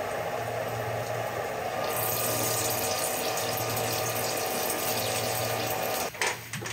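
Flood coolant spraying and splashing as a Haas CNC vertical mill drills a metal block with a 27/64 in drill at 900 RPM, over a steady hum from the machine. The sound breaks up and drops off about six seconds in.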